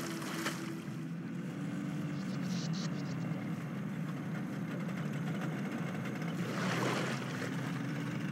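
A boat's engine running with a steady low drone. A brief rushing noise rises over it about seven seconds in.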